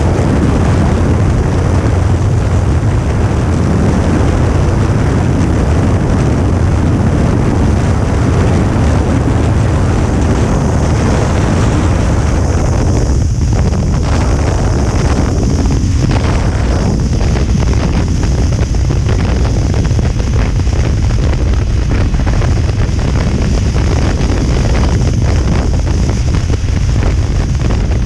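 Heavy, steady wind noise on the microphone at highway speed, over the running engine of a Kawasaki Ninja 300 parallel-twin motorcycle.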